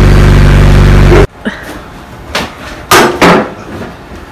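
A loud steady droning hum cuts off abruptly about a second in. Then come three heavy thumps on the crash-buckled door of a Mazda MX-5, struck from inside to force the jammed door open.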